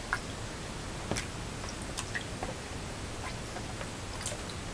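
Hands squeezing and kneading thick guar-gum gel in a plastic tub to break up clots. The sound is faint, irregular wet squelches and small clicks.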